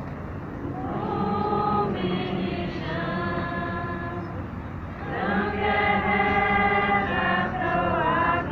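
Choir singing long held notes as music, one phrase beginning about a second in and a louder one about five seconds in.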